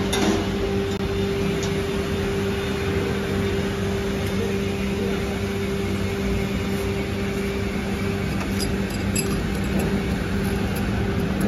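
Steady mechanical hum of workshop machinery, with a constant low tone. A few faint light clicks come about eight to nine seconds in.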